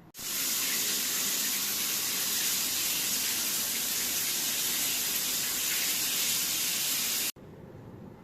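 Tap water running steadily into a sink. It starts abruptly and cuts off abruptly about seven seconds in.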